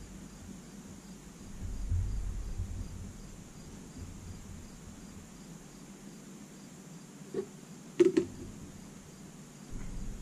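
Small clicks and handling of fly-tying tools at a vise while finishing a dry fly, the sharpest clicks coming about seven and eight seconds in. Underneath is a quiet room with a faint steady high hiss.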